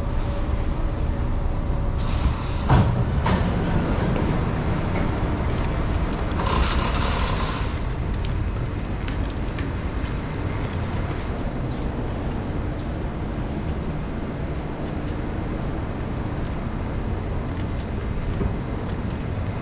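Singapore MRT train and underground station: a sharp clunk a little under three seconds in and a short hiss a few seconds later as the train's doors open, over a steady low rumble of the train and the station.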